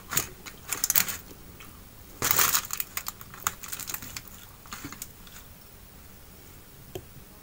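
Aluminium foil crinkling as fingers tear apart a fried fish lying on it, in a few short crackling bursts, the longest about two seconds in, then scattered small clicks.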